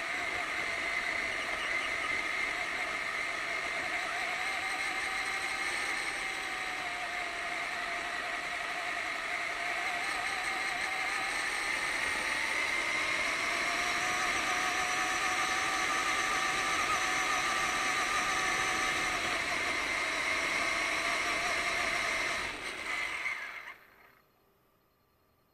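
Onboard sound of an RC monster truck driving on a dirt road: a steady whine from its motor and gears that rises and falls gently with speed, over a hiss from the tyres on gravel. The whine cuts off about two seconds before the end as the truck stops.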